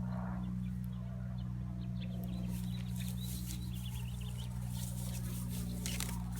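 Outdoor farm ambience: birds calling in many short, high chirps over a steady low hum, with some rustling in the second half.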